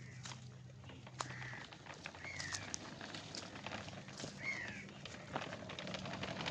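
A bird calling outdoors: three short chirps, each falling in pitch, a second or two apart. Light clicking and rustling underneath.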